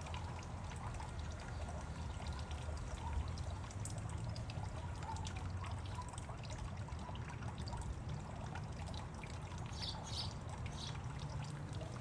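Small fountain jet in a terracotta birdbath, water splashing and trickling steadily back into the basin, with a few brief higher-pitched sounds near the end.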